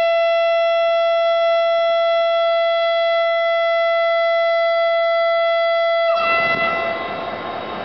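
EMD diesel-electric locomotive's air horn sounding one long steady blast that cuts off sharply about six seconds in. It gives way to the rumble of the diesel engine and the train rolling past.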